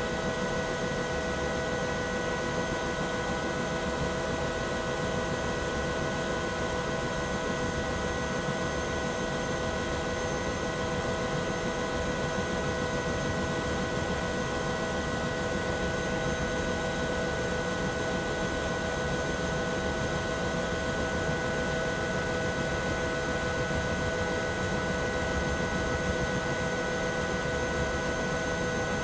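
Bell 212 helicopter heard from inside the cabin, its twin turboshaft engines and rotor running steadily: a constant turbine whine made of several steady tones over low rotor noise, with no change in level.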